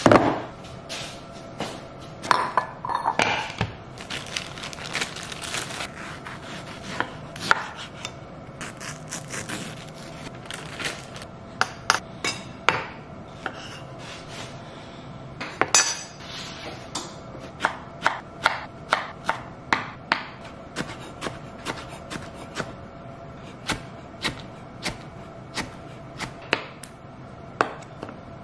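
Kitchen knife chopping fruit on a wooden cutting board: sharp knocks of the blade on the board, irregular at first and coming quicker and more evenly, about two a second, in the second half.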